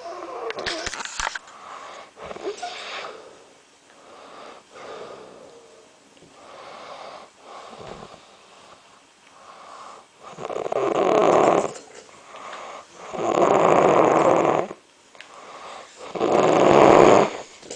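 Snoring: softer snoring breaths for the first ten seconds or so, then three long, loud snores about three seconds apart.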